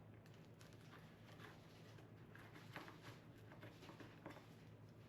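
Near silence: faint, scattered clicks of someone chewing a bite of pizza, over a low steady hum.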